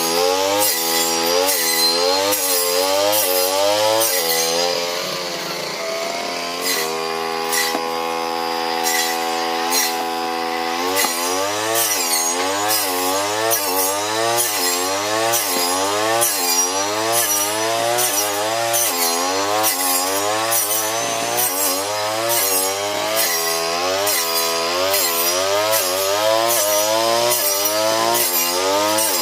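Brush cutter's small engine running hard while cutting patchouli plants. Its pitch dips and recovers about one and a half times a second as the blade takes each cut. From about a quarter of the way in, for a few seconds, it holds a steady, lower pitch before the rhythmic dipping resumes.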